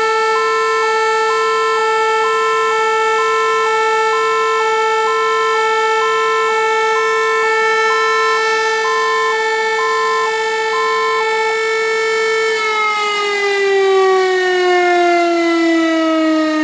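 A motor-driven warning siren holds one steady long tone, sounding the commemorative W-hour alarm, with a fire engine's two-tone siren alternating high and low about once a second over it. The two-tone stops about 11 seconds in, and soon after the warning siren winds down, its pitch falling steadily.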